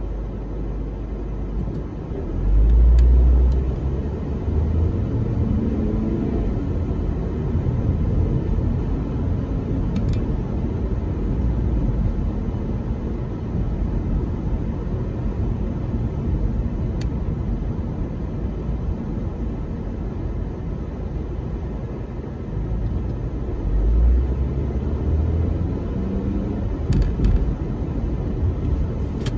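Road noise inside a moving car's cabin: engine and tyre rumble, steady, with a heavier low rumble swelling about three seconds in and again near the end.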